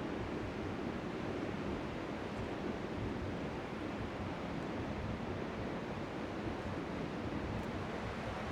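Strong sea wind rushing over the microphone in a steady, even noise, with small waves lapping faintly on the shore underneath.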